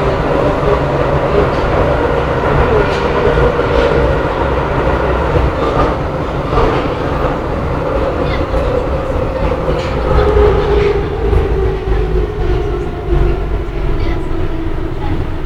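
Budapest Metro line 2 train running in the tunnel, heard from inside the carriage: a steady rumble and rail noise with scattered wheel clicks. In the second half a pitched whine drops lower as the train slows into a station.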